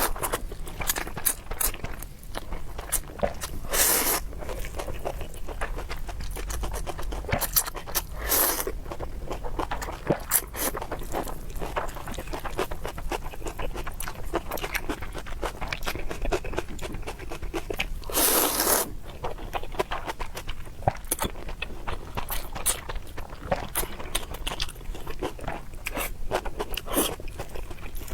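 Close-miked eating sounds: chewing and biting with many small wet clicks and scrapes, and a few louder bursts about 4, 8 and 18 seconds in.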